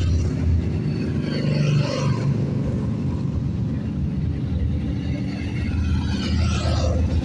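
A line of large touring motorcycles riding past slowly one after another, their engines rumbling steadily at low revs.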